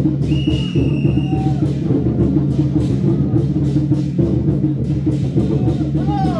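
Loud procession music driven by heavy, steady drum beats.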